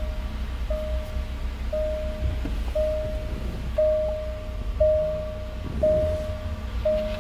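Range Rover cabin warning chime repeating about once a second, each a single steady mid-pitched tone lasting a little under a second, over a low rumble.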